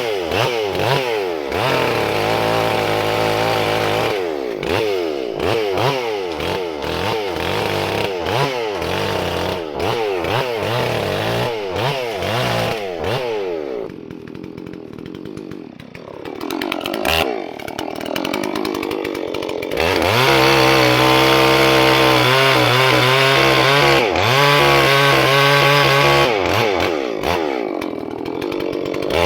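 Holzfforma G466 two-stroke chainsaw (a Stihl 046 clone) revving up and down over and over, dropping to a lower, quieter running speed about halfway through, then holding steady at high revs for the rest of the clip with a couple of brief dips.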